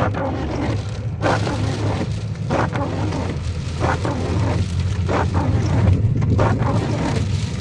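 Heavy rainstorm: a steady low rumble under the noise of the rain, with short hissing rushes about every second.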